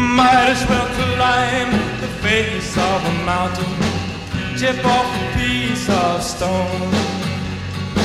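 Rock-and-roll music from a vintage record: a melodic line weaving over a steady bass and beat.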